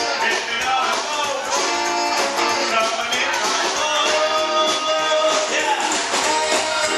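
A rock'n'roll band playing live, with guitar and upright double bass.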